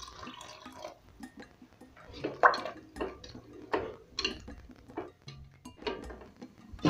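Water pouring into a pot of thick peanut sauce for about the first second. Then a wooden spoon stirs the sauce, knocking and scraping against the metal pot about once or twice a second.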